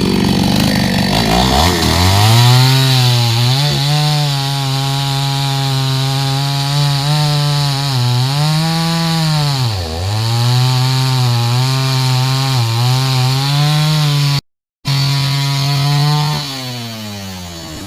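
Two-stroke chainsaw revved up to full throttle about a second and a half in, then held at high speed while cutting into a coconut tree trunk. Its pitch sags and recovers as the chain bogs in the wood, with one deep drop near the middle. The sound cuts out completely for a split second, and the engine winds down near the end.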